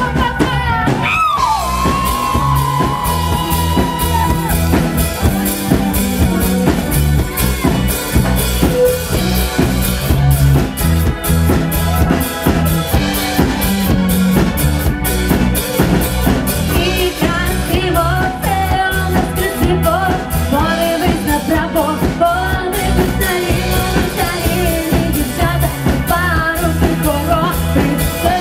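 Live rock band playing through a PA: a steady drum-kit beat with bass, and a voice singing in places.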